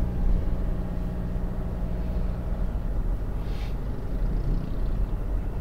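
Cabin noise of a Toyota Innova Reborn diesel driving at road speed: steady low engine and tyre rumble, with an even engine hum that fades about two and a half seconds in. A brief whoosh comes about a second later.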